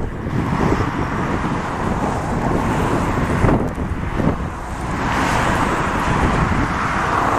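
Airbus A350-1000's Rolls-Royce Trent XWB jet engines running, a steady broad rush of jet noise with wind buffeting the microphone. The sound cuts off suddenly at the end.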